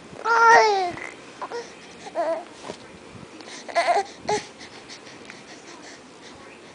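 A baby fussing while straining on his tummy: a long whiny cry in the first second that falls in pitch at its end, then shorter fussy sounds about two seconds and four seconds in, and quiet for the last couple of seconds.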